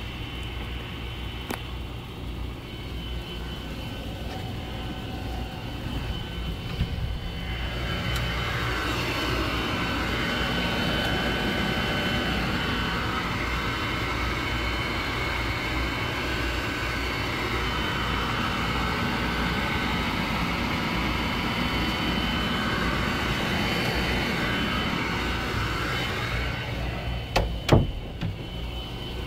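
Household furnace running, with a steady low hum under a rushing noise that swells about eight seconds in, holds, and eases off near the end; a few sharp knocks come near the end.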